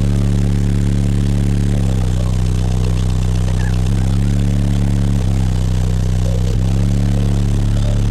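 Car audio system of twelve 12-inch Sundown ZV4 subwoofers playing loud, deep sustained bass notes that break and start again every second or two, heavily distorted by the sheer bass level.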